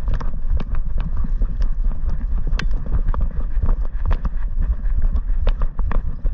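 A Weimaraner running through grass, heard from a camera strapped to its back: uneven thumps of its strides and the jostling mount about twice a second, over heavy wind rumble on the microphone.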